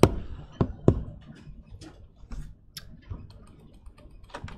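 Scattered clicks of a computer keyboard and mouse: a few sharp taps in the first second, lighter clicks after, and a quick run of clicks near the end.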